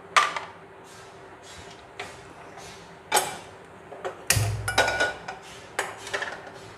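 Metal clinks and knocks as a non-stick frying pan is handled and set down on a gas stove's burner grate, with a dull thud and a cluster of clatters about four to five seconds in, one of them ringing briefly.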